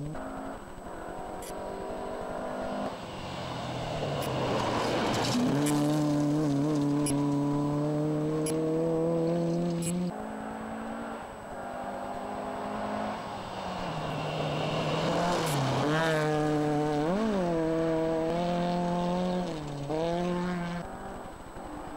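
Rally car engines on a gravel stage, revving hard, with the pitch climbing and then dropping back again and again as they come through the gears and lift off for corners. Around the middle and near the end the revs dip and rise sharply several times.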